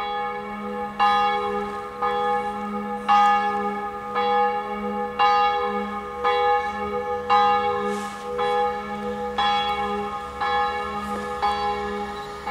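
Church bell tolling, a strike about once a second, each stroke ringing on over the sustained hum of the bell.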